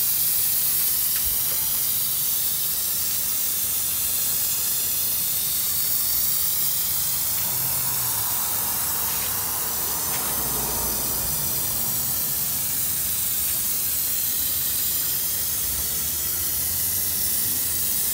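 Aerosol can of Plasti Dip rubber coating spraying with a steady hiss as it is swept across a car's front grille and bumper.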